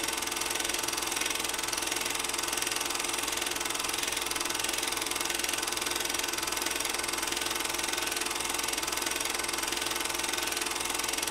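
A steady, rapid mechanical rattle over a constant hum.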